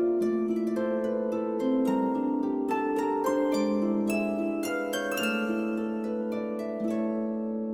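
Background music of plucked harp-like notes, a gentle melody with chords.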